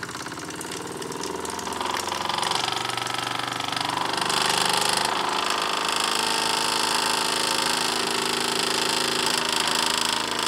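Wilesco D6 model steam engine, a single-acting oscillating-cylinder (wobbler) engine, running on steam after being spun into motion by hand. Its fast chuffing clatter picks up speed over the first few seconds, and a steady hiss of steam joins about halfway in. It is running a little slow because the boiler is not yet up to full pressure.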